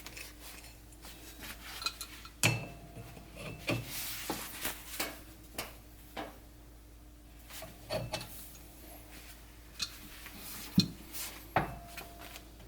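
Scattered metal clinks and knocks of brake lathe parts and a steel brake drum being handled and tightened on the lathe arbor, with a short ring after a knock about two and a half seconds in and again near the end.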